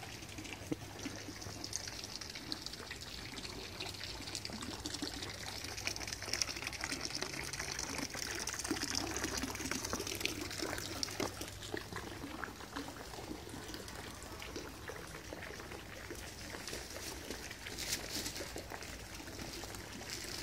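Water running and splashing steadily, like a garden fountain or water channel, a steady hiss that swells in the middle, with small ticks scattered through it.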